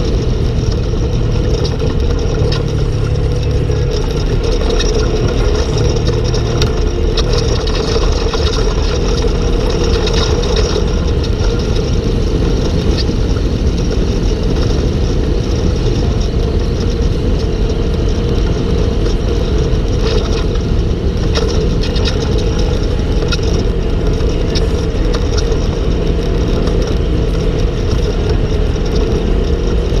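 Polaris RZR RS1 side-by-side's 999 cc twin-cylinder engine running steadily as it drives along a trail, with scattered short clicks and knocks throughout.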